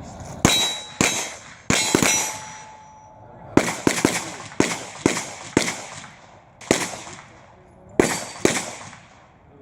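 Pistol shots fired in quick pairs and short strings, about a dozen in all, with brief pauses between groups. After some shots a thin metallic ring lingers, as from steel targets being hit.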